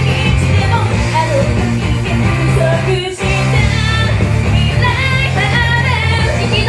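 Live idol pop-rock performance: backing track with steady bass and guitar, and female voices singing over it. The music drops out for a moment about three seconds in.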